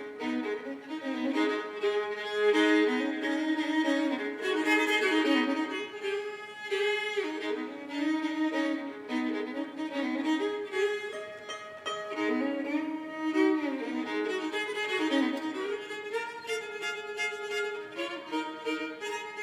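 Solo fiddle in sawmill tuning, its lower two strings raised a whole step, bowing a fast melody over ringing double-stop drones on the open strings.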